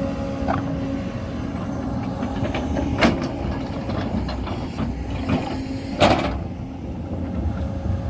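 JCB excavator's diesel engine running steadily as the bucket digs through soil and loose rock, with a few small clicks and two loud knocks of rock and metal about three and six seconds in.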